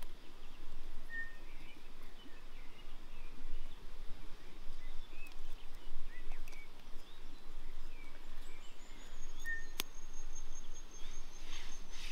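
Outdoor ambience: a steady hiss with scattered short bird chirps and a few sharp clicks, the strongest about ten seconds in. A thin, high, steady whine comes in about eight seconds in and holds to the end.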